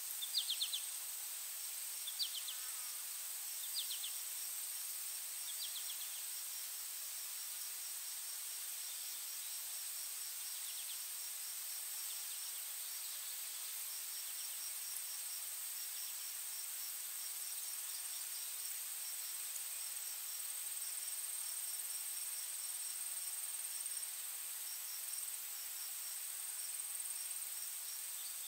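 Insect ambience: a steady high-pitched insect drone with a rapid, regular insect chirping under it, and a few short bird chirps in the first several seconds.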